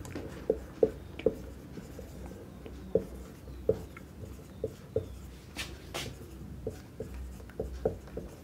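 Marker pen writing on a whiteboard: a run of short, irregular strokes and taps as letters are drawn.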